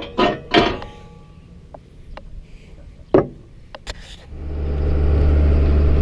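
Knocks and clicks of someone climbing into a tractor cab, then about four seconds in the New Holland 8670's diesel engine starts and settles into a steady idle.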